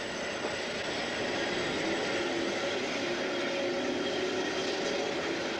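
A 1950s-built Milan articulated tram rolling past on street track: a steady rumble of wheels on the rails with a faint hum.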